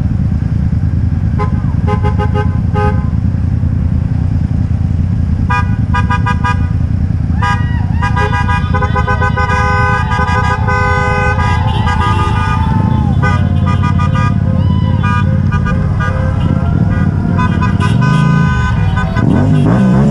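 Vehicle horns honking over a steady engine and traffic rumble: quick strings of short beeps a couple of seconds in and again around six seconds, then longer overlapping horn blasts for several seconds, fading to fainter honks later.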